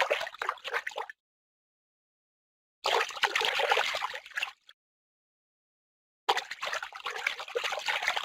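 Three short bursts of running, trickling water, each lasting one to two seconds and cut off abruptly, with dead silence between them.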